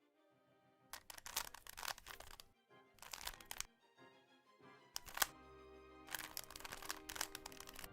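Background music with bursts of rapid plastic clicking from a Rubik's Cube's layers being turned quickly, in runs of about a second or more with short pauses between.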